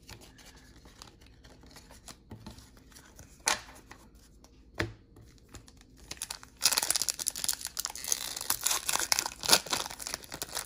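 A few light clicks and taps, then, about six and a half seconds in, a trading-card pack's wrapper being torn open and crinkled, the crinkling going on steadily.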